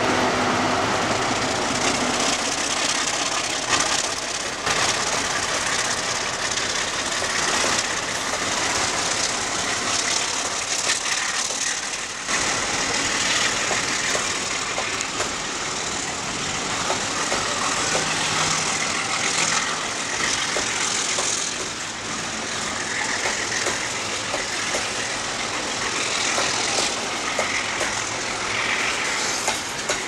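Loaded coal hopper wagons of a freight train rolling past at close range: a steady rolling noise of steel wheels on rail.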